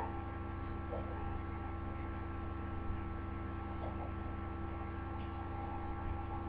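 Steady electrical mains hum, with a few faint short whimpers from a small dog: one right at the start, one about a second in, and a fainter one near four seconds.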